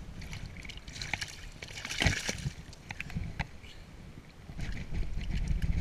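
Water sloshing and splashing in the shallows as a landed fish is handled in a landing net, with a louder splash about two seconds in. Low wind rumble on the microphone near the end.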